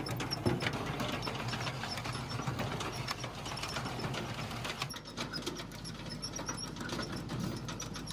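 Homemade firewood processor running: a steady low machine hum under fast, irregular clattering and rattling of its mechanism and the split wood.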